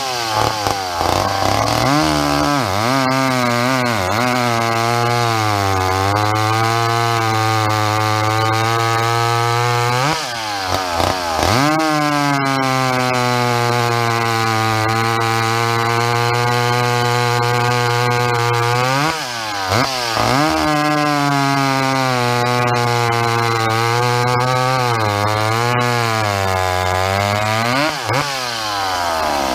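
Vintage McCulloch SP 81 two-stroke chainsaw cutting rounds off a log at full throttle. The engine pitch sags under load through each cut and jumps up as the chain breaks through, three times.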